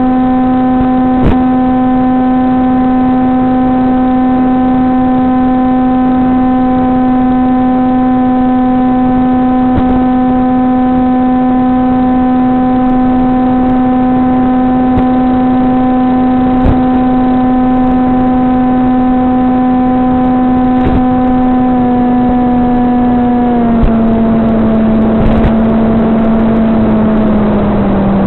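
SunnySky 2212 2450 kV electric motor spinning an APC 6x5.5 propeller on a VAS Banshee FPV plane, a steady drone that drops in pitch in small steps over the last several seconds as the throttle is eased back. A few faint clicks sit under it.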